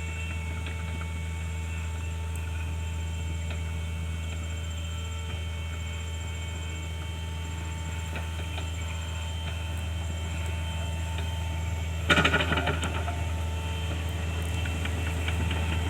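PC 48 mini excavator's diesel engine running steadily with a low hum. About twelve seconds in, a second of loud crackling and clattering breaks over it.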